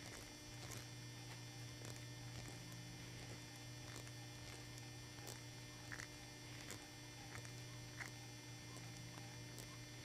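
Faint steady mains hum, with a few faint scattered ticks as a small screwdriver backs a self-tapping screw out of the threads it has just cut in a machined metal plug.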